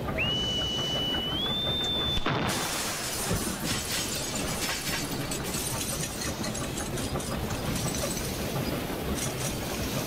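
Cannon-shot sound effect: a high whistle that climbs in pitch for about two seconds, then a sudden blast, followed by a long stretch of rumbling, crashing and clattering like crockery shattering.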